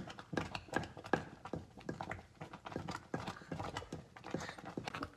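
A pot of quick oats cooking as it thickens, giving irregular clicks and knocks, several a second.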